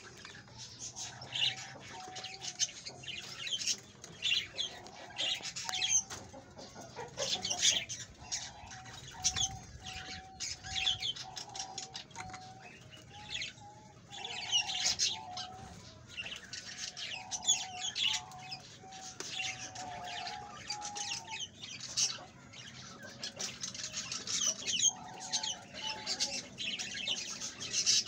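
Birds chirping and calling: a busy run of quick high chirps with a string of short repeated lower notes.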